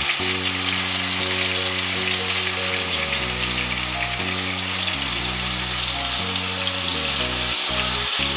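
Masala-coated rohu fish steaks sizzling steadily in hot oil in a pan as the pieces are turned over with a spatula. Background music of held low notes plays underneath.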